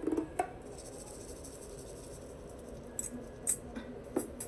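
The last short plucked notes of an intro jingle, then low hiss with a few faint, sharp clicks about three and four seconds in.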